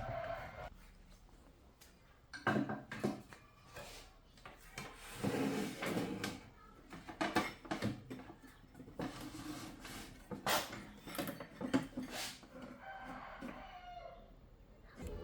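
Irregular clicks, knocks and rubbing from parts and tools being handled during amplifier repair work, loudest through the middle of the stretch.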